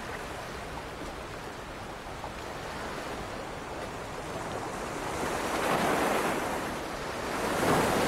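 Ocean surf washing against the shore, a steady rush of water that swells twice with incoming waves in the last few seconds.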